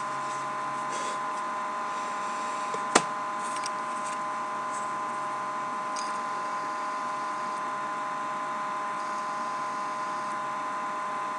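A steady electrical-sounding hum of several constant tones, with faint light handling noises from sorting trading cards and one sharp click about three seconds in.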